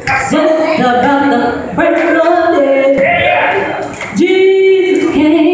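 Gospel vocal group of men and women singing a cappella in close harmony, holding out long chords.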